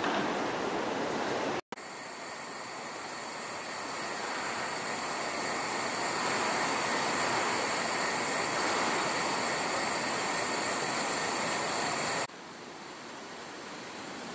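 Steady street ambience: a continuous rushing hiss of city air and distant traffic with no distinct events. It cuts out for an instant near the start and drops abruptly in level near the end, where one shot's sound gives way to the next.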